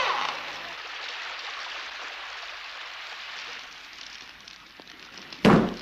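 A steady hiss like falling rain that slowly fades, then one short, loud burst of sound near the end.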